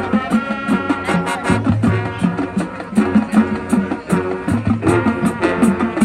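Marching band playing: brass holding sustained chords over a steady, driving drum-line rhythm.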